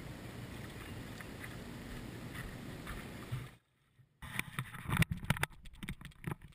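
Steady wind rushing on the camera microphone. It cuts out for about half a second about three and a half seconds in, then comes back as irregular gusts and knocks.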